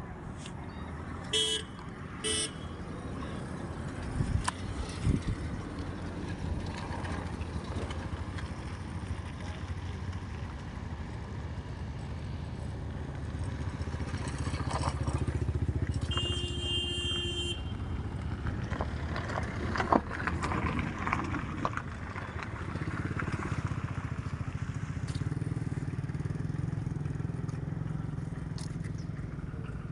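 Road traffic: engines running as a steady rumble, with short vehicle horn toots, two quick ones near the start and a longer one about halfway through.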